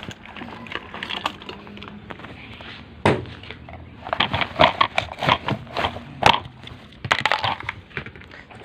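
Crackling and knocking of plastic as washing machine pulsators are handled, a quick irregular run of clicks and crinkles that is busiest and loudest in the middle.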